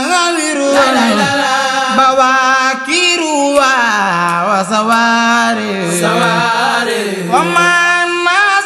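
A voice chanting a khassida, a Mouride Sufi devotional poem in Arabic, in long gliding, ornamented phrases over a steady low drone.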